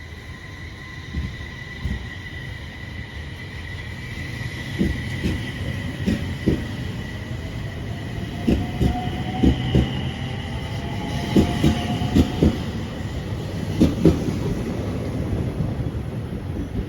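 E721-series electric train accelerating away from the station: a rising whine from the traction motors and the running of the wheels growing louder, with irregular sharp clacks as the wheels cross rail joints and points.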